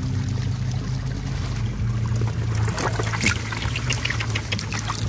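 Hands splashing and groping in shallow muddy water, small splashes and sharp ticks coming thick in the second half, one louder crack about three seconds in. A steady low hum runs underneath.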